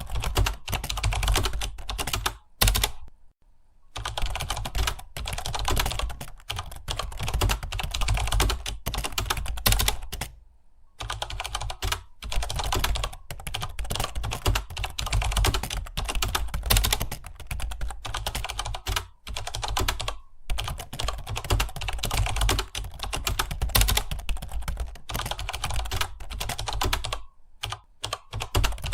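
Fast, continuous typing on a computer keyboard, a dense run of key clicks during a timed typing test. The typist pauses briefly a few times, longest about three seconds in and again about ten seconds in.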